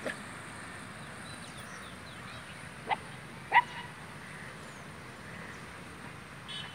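Puppy yelping: a faint yip at the start, then two sharp yips about half a second apart near the middle, the second the loudest.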